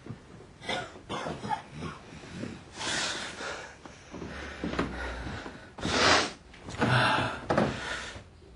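A man's rough, noisy breaths and snorts in several short bursts, loudest about six and seven seconds in.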